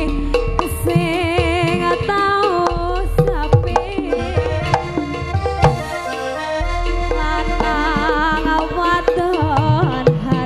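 Live Javanese campursari music for a jaranan show: a female sinden singing with strong vibrato over the band, with frequent sharp drum strokes.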